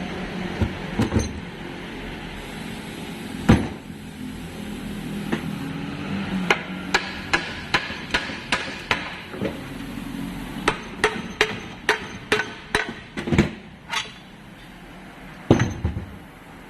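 Hammer blows: more than a dozen quick, irregular strikes through the middle stretch, with a few single knocks before and after. A steady low hum runs underneath, strongest in the first few seconds.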